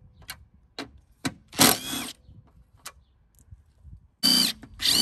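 Cordless electric driver with a socket extension working a fender bolt: a few light metal clicks and one loud brief noise in the first two seconds, then near the end the motor whirs in short runs on a bolt that won't come out.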